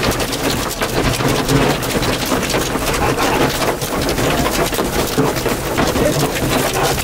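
Hail and heavy rain pelting a storm-chase vehicle, a dense, steady clatter of countless small impacts, over the low rumble of the vehicle running.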